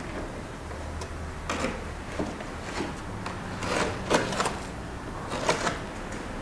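Small trowel scraping and tapping against wet cement and the wooden edge of the hollow: a scatter of short, uneven scrapes, the loudest a little after four seconds and again about five and a half seconds in, over a low steady hum.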